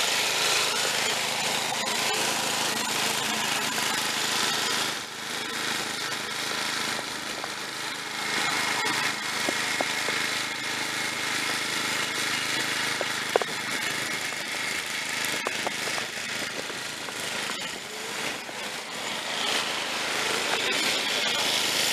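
Snapper rear-engine riding mower's engine running steadily as it is driven across wet grass, louder as it passes close near the start and again near the end. The owner says it will only run on choke.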